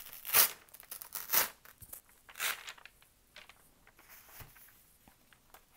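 Unryu paper, a thin sheet with long embedded fibers, torn by hand: three strong tearing strokes about a second apart, then softer rustling of the sheet.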